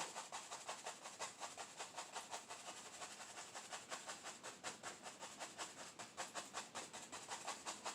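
Clean soft brush scrubbing quickly over a canvas, about five even strokes a second, softening and blending wet oil paint into a misty edge.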